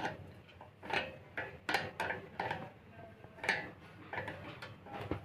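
Screws and bolts with washers being tightened on a ceiling fan's metal mounting parts: a string of light metallic clicks and clinks at irregular intervals.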